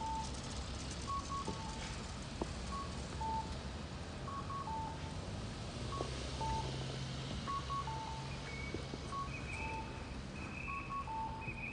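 Audible pedestrian crossing signal at a Japanese intersection repeating its two-note electronic 'cuckoo' call, a short high note followed by a longer, lower one, over and over, with a low vehicle engine hum underneath. Higher-pitched beeping joins in about eight seconds in.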